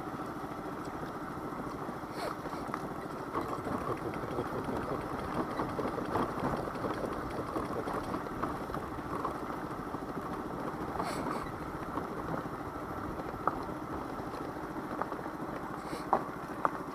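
Daelim Witty 100 scooter's engine running as it rides over a rough mountain track, with a few sharp knocks from bumps.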